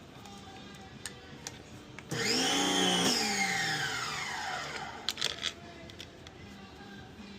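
A small electric motor starts suddenly, rises briefly in pitch, then winds down, falling in pitch over about three seconds. A few sharp clicks follow.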